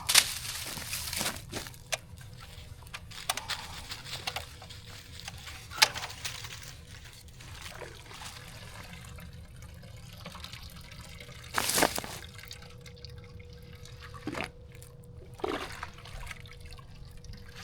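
Liquid trickling and dripping as boiled homemade stain strains through a cloth into a bucket, with a few sharp knocks, the loudest about twelve seconds in.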